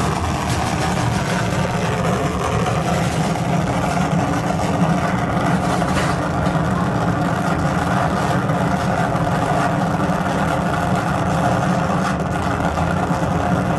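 Live electronic noise performance from tabletop electronics: a steady, loud drone of thick noise, heaviest low down, with no beat or melody.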